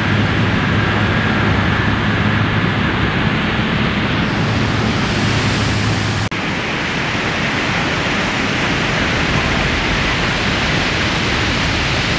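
Steady rush of ocean surf breaking, mixed with wind noise, with an abrupt change about six seconds in.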